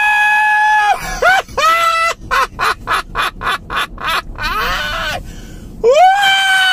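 A man laughing hard: long, high-pitched held shrieks at the start and again near the end, and in the middle a run of quick ha-ha bursts, about five a second.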